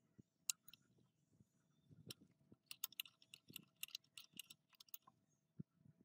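Ratcheting box-end wrench clicking as a nut is turned on an engine block: a few single clicks, then a quick run of about four to five clicks a second near the middle.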